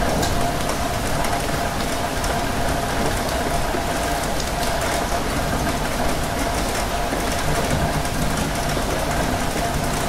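Steady rain pattering on a window, with faint drop ticks, over the low rumble and steady hum of a rail carriage in motion.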